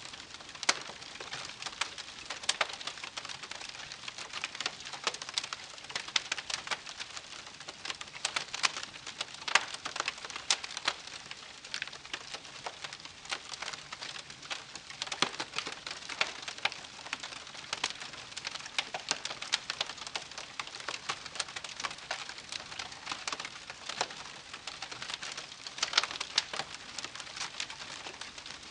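Wood campfire crackling: a dense, irregular run of small pops and snaps over a soft hiss.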